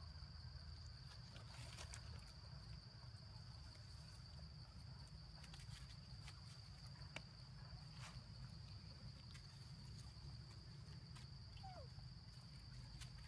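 Faint, steady high-pitched insect drone, with scattered light rustles and crackles of dry leaf litter and one short falling squeak near the end.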